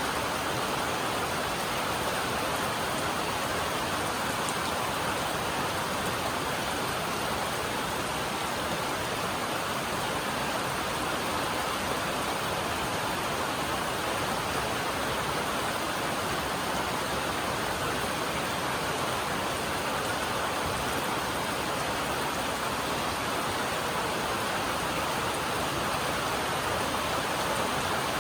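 Steady rain falling on a metal roof, an even hiss of drops with no let-up.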